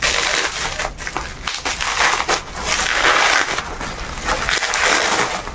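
Bubble-wrap packaging crinkling and crackling as it is peeled back by hand and a cardboard box is pulled out of it. The crackling swells in the middle.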